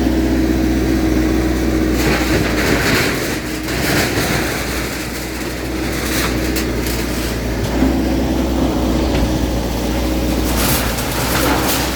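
Diesel engine of a bulldozer (earthmover) running steadily under load during a demolition, with bursts of crashing and rattling from the wrecking about two seconds in and again near the end.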